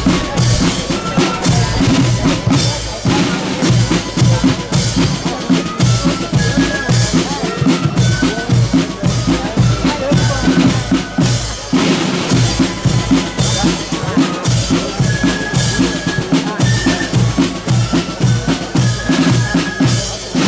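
Marching band drums, side drums and bass drum, beating a steady march rhythm, with a few short high piping notes above.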